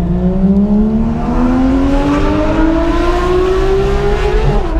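Porsche 911 GT3 RS flat-six with a straight-pipe exhaust accelerating hard through one gear, its pitch climbing steadily, then dropping sharply at an upshift near the end. The exhaust valves are closed.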